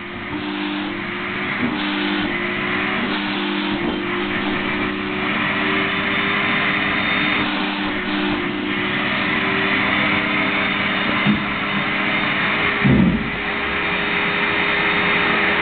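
Canister vacuum cleaner running steadily while its hose nozzle is drawn through a cat's fur, the suction hiss swelling and easing as the nozzle moves. Two brief knocks come in the last few seconds.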